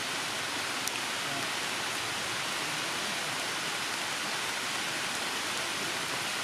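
Heavy rain falling on forest foliage, a steady even hiss. A single sharp click comes about a second in.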